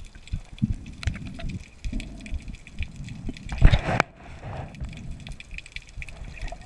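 Underwater sound from a swimming diver's camera: water sloshing and knocking against the housing in irregular low thumps, with a steady fine crackle. One louder thump comes about three and a half seconds in.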